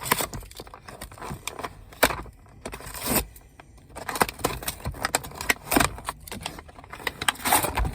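A Pokémon card-game deck box being opened and its contents handled: irregular clicks, scrapes and rustles of cardboard and packaging.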